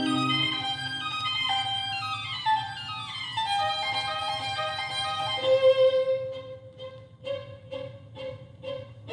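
Violin music played back on a Pioneer PL-41W turntable: a descending run of notes, a held note, then short detached notes about twice a second from about six seconds in.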